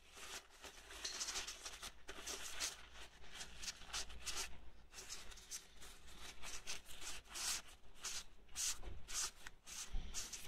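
Paper tissue rubbing and rustling inside the metal bore of a Classic Mini rear brake wheel cylinder as the bore is wiped out, in a quick, irregular run of scratchy strokes. This is the clean-down of the bore after honing with an abrasive, to get the grit out.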